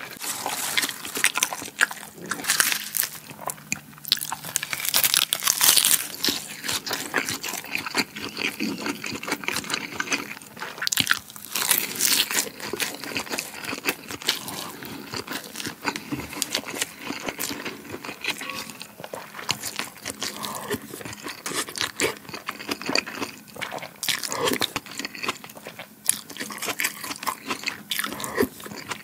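Close-miked eating: continual chewing and crunching of mouthfuls of rice with luncheon meat and rolled omelette, and spoonfuls of kimchi stew, in irregular moist clicks and crackles.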